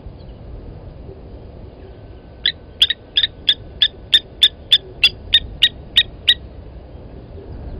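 Blacksmith lapwing alarm calling: a quick series of about fourteen sharp, metallic 'tink' notes, roughly three a second, starting about two and a half seconds in and stopping after about four seconds. This is the bird's alarm at a predator near its chick.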